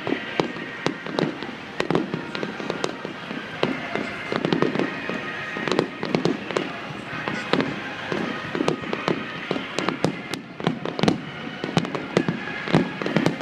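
Fireworks bursting in quick succession throughout: a dense string of bangs and crackles.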